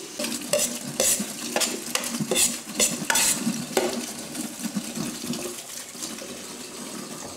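A metal utensil stirring in a pan, knocking and clinking against it a dozen or so times at an irregular pace, over the steady hiss of food frying in oil.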